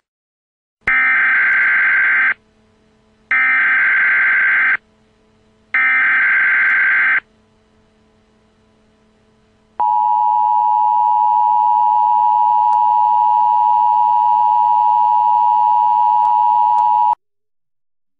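Emergency Alert System SAME header: three short bursts of screeching digital data tones, each about a second and a half long, followed by the two-tone EAS attention signal held steady for about seven seconds, then cut off sharply.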